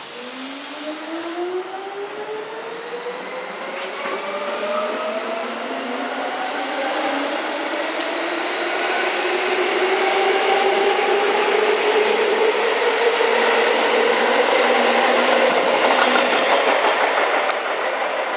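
A Hokuso 9000 series electric commuter train pulling away from the station. The whine of its traction motors rises steadily in pitch as it gathers speed, over the growing noise of wheels on rail.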